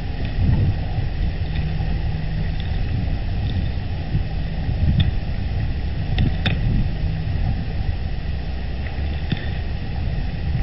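Steady low wind rumble on an outdoor nest-camera microphone, with a few faint short high chirps over it, the sharpest about six and a half seconds in.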